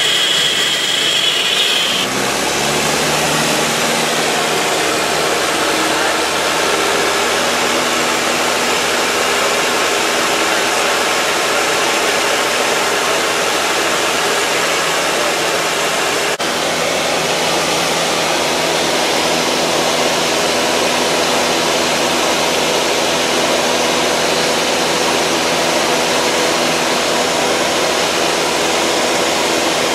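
Cabin noise of a 1960s four-seat light airplane in flight: the engine and propeller's steady, really loud drone, mixed with rushing air. A high steady tone cuts off about two seconds in.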